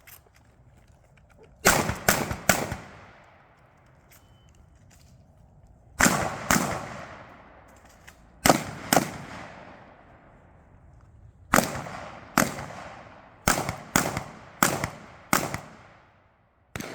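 Shotgun fired in quick strings of two or three shots, each shot with a long echoing tail, with pauses of a few seconds between strings; about a dozen shots in all.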